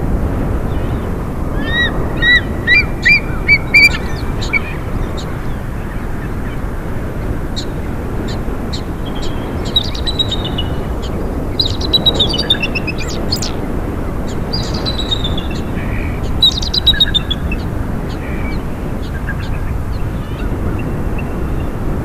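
Bald eagle calling: a quick run of about seven high, thin chirps in the first few seconds, then more bursts of chattering chirps through the middle. Under it a steady low rush of wind.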